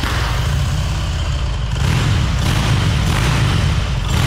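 The 2019 Arch KRGT-1's S&S V-twin engine running loud just after being started, with a few brief swells in loudness.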